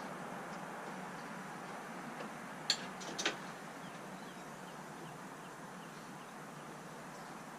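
Steady background hiss with two sharp clicks about half a second apart near the middle, and a few faint high chirps later on.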